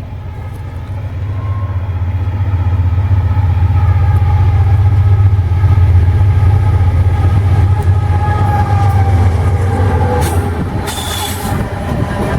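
Diesel-electric freight locomotive passing, its low engine rumble growing louder to a peak about halfway through and then easing off. A short hiss sounds near the end.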